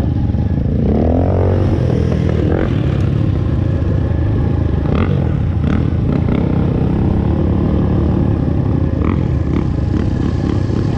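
Dirt bike engine running steadily under way on a rough dirt track, with a few short knocks over the bumps.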